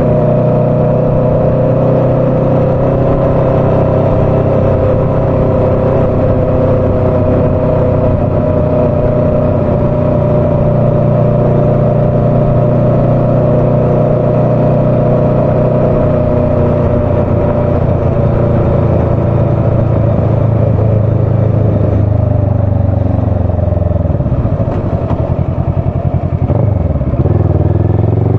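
Motorcycle engine running under way, heard from on the bike, its note holding steady and easing slowly lower. Near the end the revs drop away as the bike slows for a turn, then start to rise again as it pulls away.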